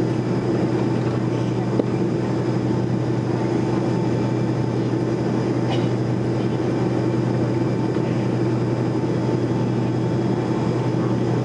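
Boeing 737-200's Pratt & Whitney JT8D jet engines running steadily, heard from inside the cabin over the wing as a continuous hum and whine while the jet taxis.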